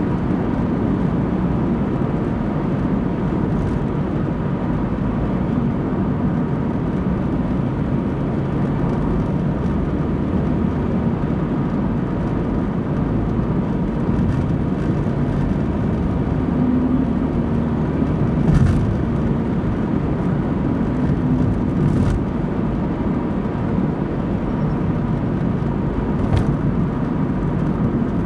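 Car driving at steady speed: a continuous low rumble of engine and tyre noise with a faint steady high tone. There are a few brief knocks from road bumps about two-thirds of the way through and near the end.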